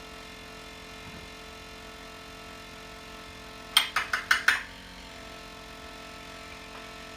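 A quick run of about five sharp clinks near the middle, like a spoon knocking against a mug or jar while scooping peanut butter. A steady low electrical hum runs underneath.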